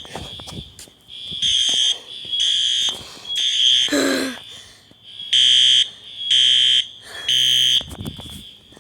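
System Sensor fire alarm horns blasting in the temporal-three evacuation pattern: two groups of three half-second blasts, with a pause after each group. A fainter horn sounds between the blasts. The alarm was set off by a problem with a heat detector.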